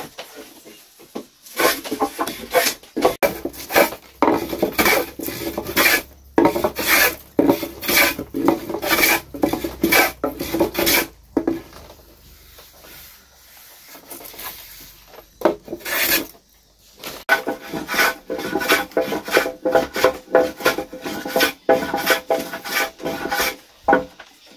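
Hand saw cutting through a wooden pole in steady back-and-forth strokes, about two a second, with a pause of a few seconds about halfway through before the sawing resumes.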